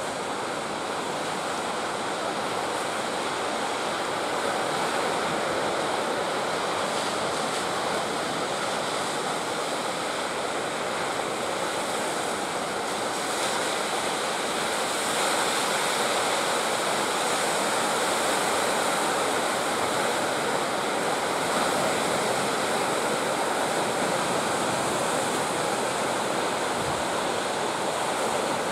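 Ocean surf: waves breaking and washing ashore in a steady, continuous rush.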